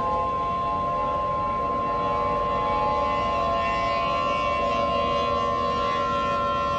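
Outdoor warning siren sounding a steady tone made of several pitches at once, holding level without rising or falling.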